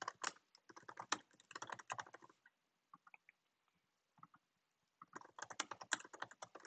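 Faint typing on a computer keyboard in quick runs of keystrokes, with a pause of about two and a half seconds in the middle.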